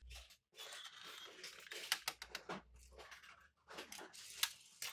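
Toy packaging being handled and opened: faint, irregular rustling with small clicks.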